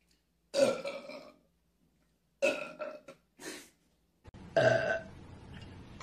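Young women burping: four separate belches, each under a second long.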